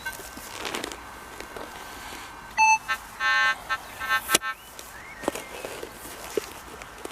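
Minelab CTX 3030 metal detector giving three short electronic tone beeps over a target, among the scraping and crunching of a spade digging into soil, with one sharp knock about four seconds in.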